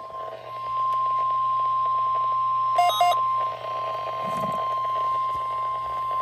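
NOAA Weather Radio 1050 Hz warning alarm tone: one steady, unbroken high tone, heard over a radio with a low hum beneath it. Two short lower beeps cut in about three seconds in.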